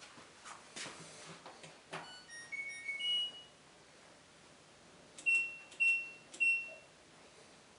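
LG clothes dryer control panel beeping: a few light clicks, then a short two-note chime rising in pitch, then three short identical beeps about half a second apart as it is switched on and set going.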